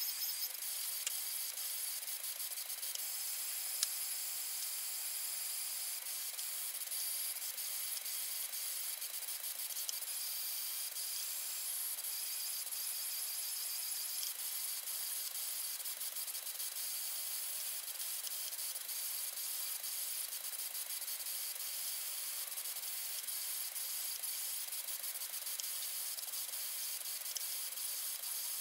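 Anycubic Kossel delta 3D printer printing on tennis-ball vibration-absorbing feet: a steady high-pitched hiss and whine from the stepper motors and moving effector, with a few faint clicks.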